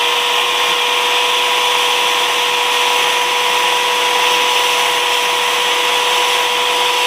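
Handheld electric power-carving tool running at a steady, high-pitched full speed.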